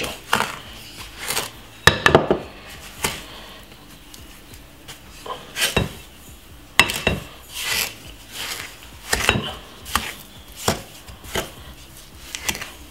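A wooden spoon knocks and scrapes against a glass mixing bowl while butter and sugar are creamed by hand. The knocks are irregular, about one a second, with a short pause a few seconds in.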